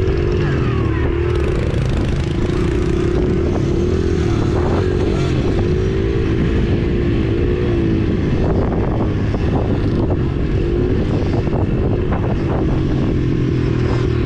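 Small motorcycle engine running on a dirt trail, its pitch rising and falling as the throttle is worked. A few knocks and rattles come in the second half.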